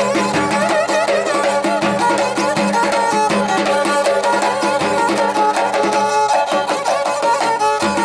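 Turkish folk music: a pear-shaped fiddle, held upright and bowed, plays a wavering melody over a steady beat struck by hand on a large rope-tensioned davul drum.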